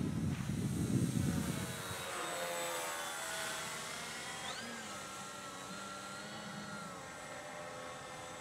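Electric model plane's motor and propeller whining overhead, a steady many-toned hum whose pitch sinks slightly as it passes. Low wind rumble on the microphone covers the first second or so.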